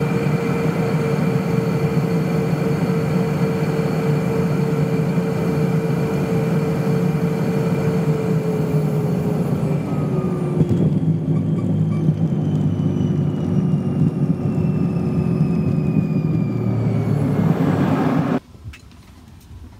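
Jet airliner cabin noise during landing: a steady heavy roar of engines and airflow with whining tones, a thump about ten seconds in as the wheels touch down, then the engine whine falls steadily as the plane slows on the runway. The sound cuts off abruptly near the end.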